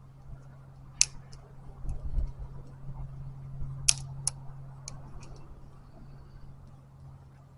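Dry sticks and kindling giving scattered sharp cracks and snaps, about seven in all, the loudest about a second in and about four seconds in, over a steady low hum.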